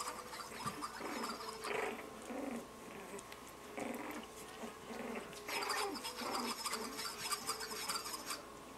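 A litter of five-week-old Lhasa Apso puppies play-fighting, with many short overlapping growls, yips and squeaks. It gets busier and more high-pitched about halfway through.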